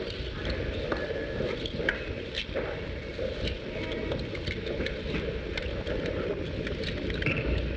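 Steady hiss with scattered crackles and clicks from an old 1954 live-TV broadcast soundtrack, with no speech.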